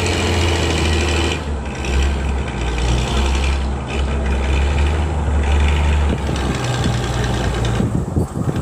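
A vehicle engine running with a low, steady rumble that shifts in pitch a few times, with a rattling haze above it.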